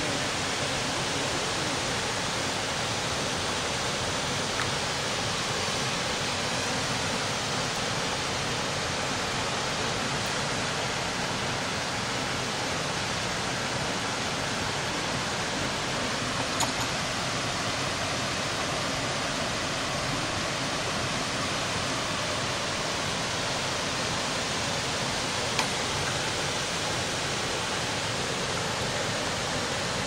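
Steady rushing of a waterfall and its stream: an even, unbroken water noise, with two brief clicks, one about halfway through and one near the end.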